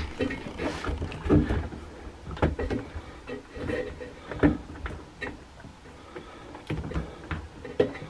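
Rubber door gasket of a front-load washer being stretched and pressed back into the plastic lip around the drum: irregular soft knocks and thumps with short rubbing sounds of hands and rubber on plastic.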